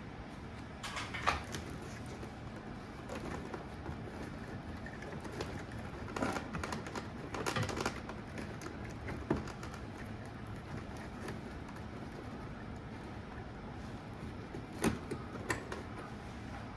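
A few scattered light clicks and knocks, about six over the stretch, against a steady low background hum, as of things being handled.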